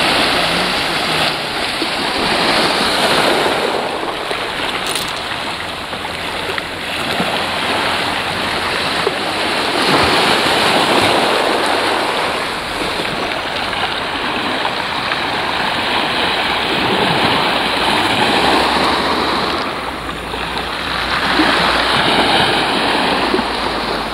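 Small sea waves washing onto a pebble beach, a steady rush of surf that swells and eases every few seconds.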